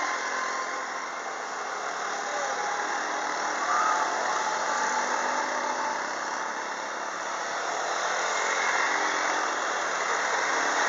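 Quad bike engines running as the quads ride by, over a steady rushing noise that swells and eases slightly.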